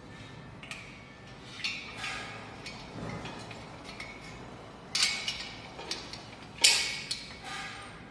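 Steel square tubing of a weight bench frame knocking and clanking as a crossbar is worked into its bracket: a string of separate metallic knocks that ring briefly, the loudest two about five and seven seconds in.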